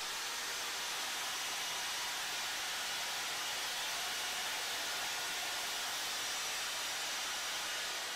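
Workshop power tool running steadily: an even, hissy machine noise with no change in pace.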